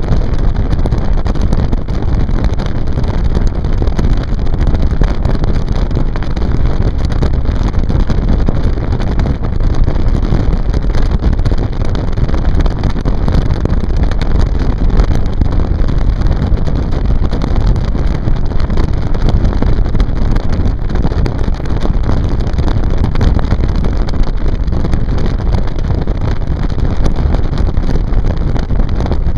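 A motorboat underway, its motor and water noise mixed with a steady rush of wind on the microphone, with no breaks or changes.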